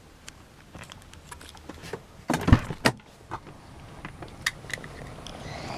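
Car door being unlatched and opened: a quick series of sharp latch clicks with a heavy clunk about two and a half seconds in, then lighter clicks and handling noise.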